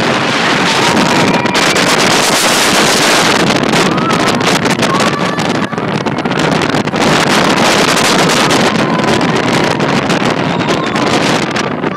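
Roller coaster train running at speed, a loud rushing rumble with wind buffeting the microphone, and faint high screams from riders now and then.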